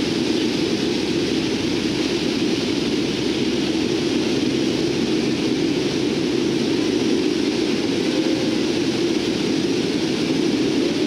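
Steady drone of a Lockheed C-130T Hercules's four Allison T56 turboprop engines and propellers, heard inside the cargo hold.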